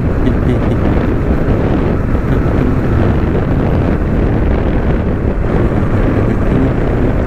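Steady wind noise on the microphone over the running of a motorbike being ridden along a road.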